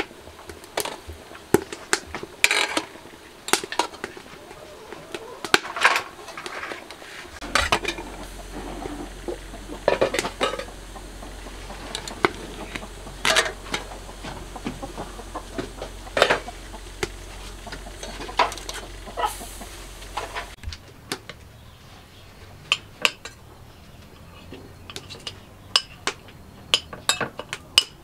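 Scattered clinks and knocks of utensils against metal pots and bowls, coming thicker near the end as a metal spoon scrapes and taps in a ceramic bowl. A low steady hum runs under the middle part.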